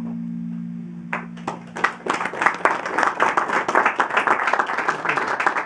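Final low notes of a concert harp ring out and fade. About a second in, an audience begins clapping, building into steady applause.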